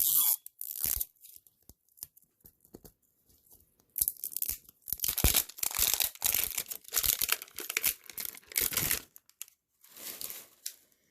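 Plastic wrapping of an L.O.L. Surprise toy ball being torn and crinkled open: a few scattered crackles, then a dense run of tearing and rustling from about four to nine seconds in.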